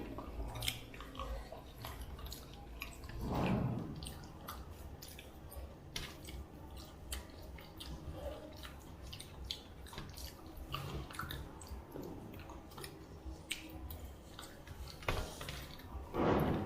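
Quiet eating sounds: chewing, with many small scattered clicks of food being handled and eaten. Two louder rushes of noise stand out, one about three and a half seconds in and one near the end.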